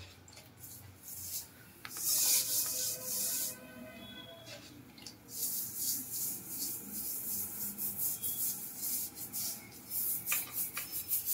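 Hand brush scrubbing ceramic wall tiles, in bursts of quick back-and-forth strokes that turn rapid and continuous in the second half. A short held pitched tone sounds in the first half.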